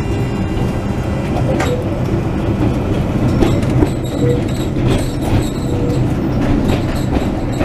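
Tram running on its rails, heard from inside the driver's cab: a steady low rumble of wheels and motors, with scattered clicks and knocks.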